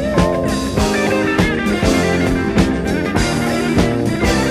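Late-1970s post-bop jazz band recording playing: sustained melody notes, one wavering with vibrato near the start, over bass and frequent drum strokes.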